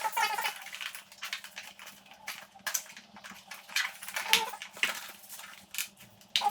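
Irregular clicks, knocks and scrapes of parts and tools being handled while a motorcycle is stripped down, with a few short squeaks.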